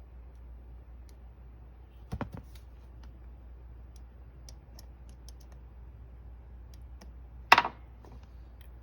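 Two sharp pops from a car tweeter, about five seconds apart and the second louder, with a few faint ticks between, over a low steady hum. Each pop is a battery being touched to the tweeter's wires, the test that shows those wires lead to the tweeter.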